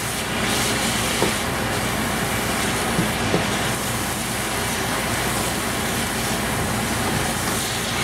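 Noodles and spinach sizzling in a hot oiled nonstick wok while being stirred and tossed with a spatula, a steady frying hiss with a few light knocks of the spatula against the pan.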